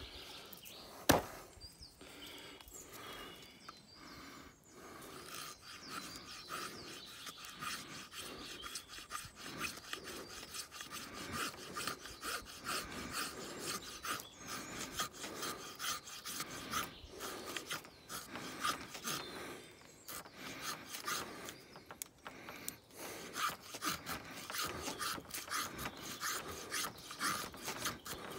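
A 1075 carbon-steel bushcraft knife blade carving shavings down a wooden stick: a continuing run of short scraping strokes of steel on wood. A single sharp click comes about a second in.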